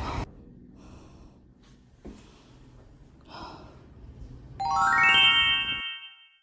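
A few soft sighing breaths, then a bright chime run that climbs in quick steps and rings on for about a second and a half.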